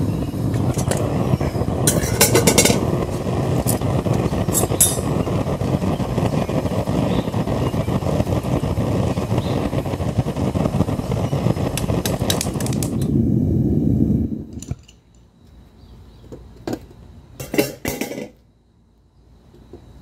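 Gas-fired metal-melting furnace burner running with a steady low rushing noise while molten scrap aluminium is stirred in its crucible, then shut off abruptly about two-thirds of the way through. Several short metallic clinks of a steel tool and tongs against the crucible come a couple of seconds in, around five seconds, and twice more near the end.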